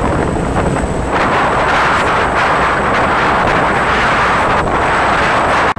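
Wind buffeting the microphone on the open deck of a moving passenger ferry, over the rush of water along the hull. The rushing noise grows louder about a second in.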